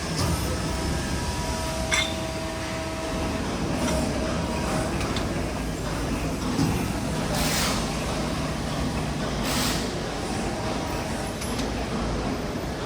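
CNC hybrid servo press brake running: a steady mechanical hum, with a sharp click about two seconds in and two short hisses in the middle.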